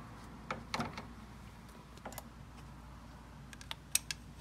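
Scattered light clicks and taps, in a few small clusters, from a screwdriver probing down a spark plug hole onto the piston of a blown Genesis Coupe 2.0T engine. The engine is set at top dead center, and the taps are a check for piston play in the suspect cylinder 4.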